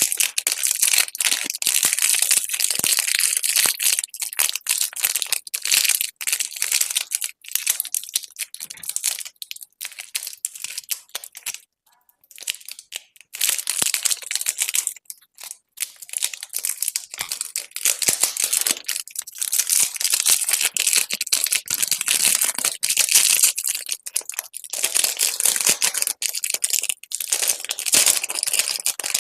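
Candy wrappers being crinkled and torn open close up: a dense crackle of rustling and small clicks, stopping briefly twice around the middle.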